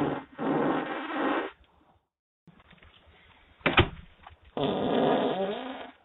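Two drawn-out farts, each over a second long with a wavering pitch: one at the start and one near the end. A single sharp knock comes between them.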